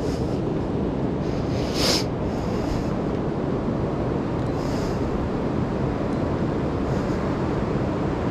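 Steady rushing noise of fast river water below a dam, with a couple of short hissing bursts about two seconds in and again near five seconds.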